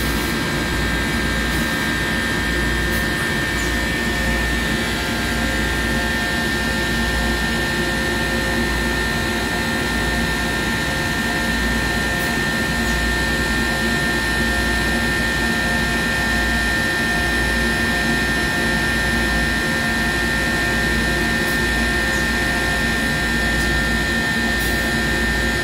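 Tsugami SS327-5AX Swiss-type CNC lathe machining under flood coolant: a steady, loud running sound with several held high whining tones over a hiss of spraying coolant.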